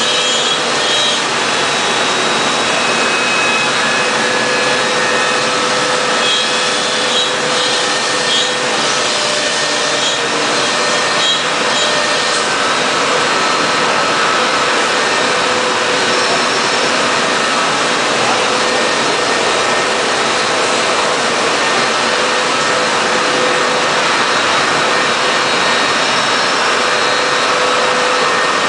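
2006 Busellato Jet 200 CNC router running: a loud, steady rushing noise of air and motors with several steady whining tones on top. Faint light clicks come and go during the first twelve seconds or so.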